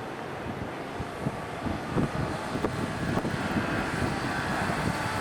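Nankai Electric Railway train running over the level crossing, its wheels rattling and knocking irregularly on the rails over a steady rumble, the clatter building from about a second in.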